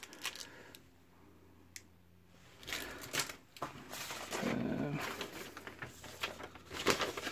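Paper and thin cardboard rustling and scraping as a folded instruction manual is pulled out of a cardboard box and opened. The first couple of seconds are quiet apart from a single click.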